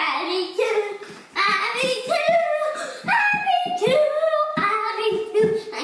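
A young child singing in a high voice, in short notes that change pitch often.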